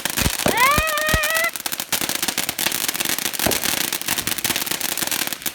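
Ground-launched consumer firework crackling in a dense, rapid run of sharp pops, with three deeper thumps in the first second and a half.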